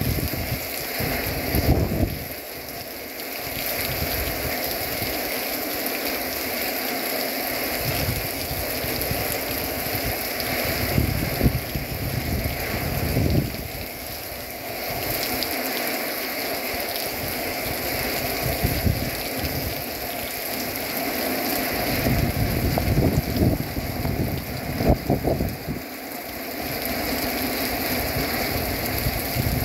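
Heavy hurricane rain pouring down steadily, with irregular louder low rumbles coming and going.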